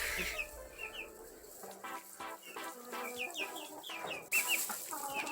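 Baby chicks peeping over and over in short, high, sliding cheeps. A brief rustling burst about four seconds in.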